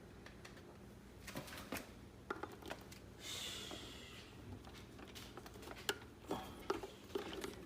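Faint scattered clicks and light taps, with a short hiss about three seconds in, over a low steady hum.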